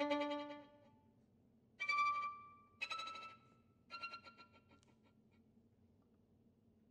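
Solo violin, bowed: a loud passage dies away, then three short high notes about a second apart, each quieter than the last, before the sound fades out.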